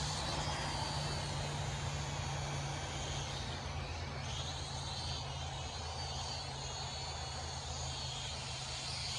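Syma X5C-1 quadcopter's small brushed motors and propellers whining faintly in flight, the pitch rising and falling a few seconds in as the throttle changes, over a steady low hum.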